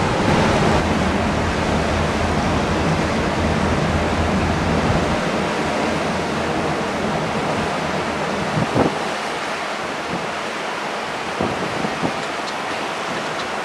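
Steady rush of the sea and the ship's wake mixed with wind on the microphone, from a moving ship's open deck. A low steady hum underneath drops away about five seconds in, and there are a couple of faint knocks near the end.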